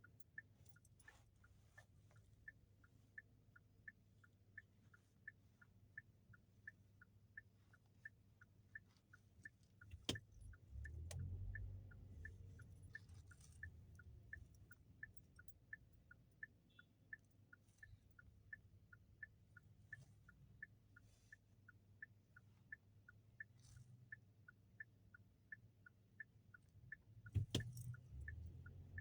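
A car's turn-signal indicator ticking steadily inside the cabin, two to three clicks a second alternating between two tones, over the low rumble of the car idling. A louder knock about ten seconds in and another near the end.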